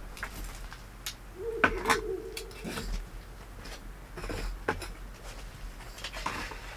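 An unidentified animal calling in the dark around the campsite: one steady, drawn-out call of about a second, starting about a second and a half in. A few short clicks and knocks come before and after it.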